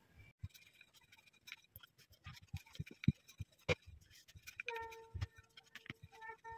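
Faint scattered knocks and taps of hands patting and smoothing a thin sheet of dough on a wooden rolling board, with a wooden rolling pin knocking on the board near the end. A steady pitched tone from an unseen source comes in about two-thirds of the way through.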